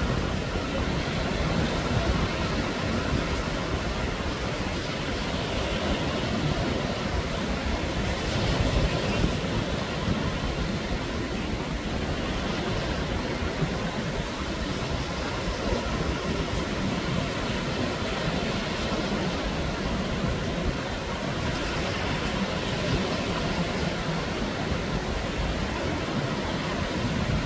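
Surf: small waves breaking and washing up a sandy shore in a steady rush of water, with wind rumbling on the microphone.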